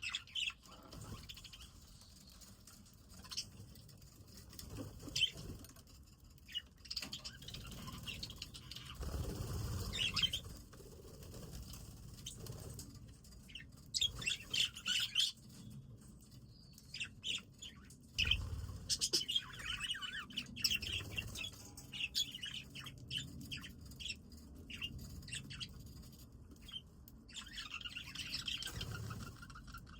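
Budgerigars chirping in short, scattered bursts of high twittering, busiest around the middle and again near two-thirds through, with a couple of dull low rumbles about a third of the way in and just past halfway.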